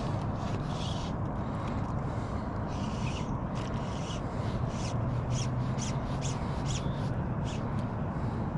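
River water rushing steadily, with an irregular scatter of short, crisp splashes or clicks over it.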